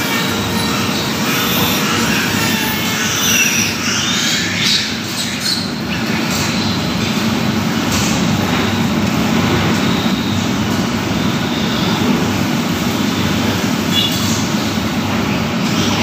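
A piglet squealing in high, wavering cries as it is held for its teeth to be cut, most in the first few seconds and again briefly near the end, over a loud, steady din in the pig barn.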